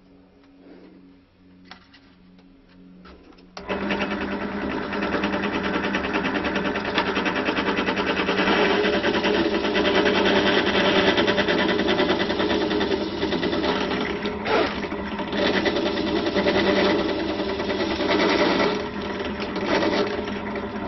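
Bench drill (drill press) running loud and steady as its bit bores a tuner-peg hole, about 10 mm, through a hard-wood dulcimer headstock. The loud running starts suddenly about three and a half seconds in, after a faint low hum.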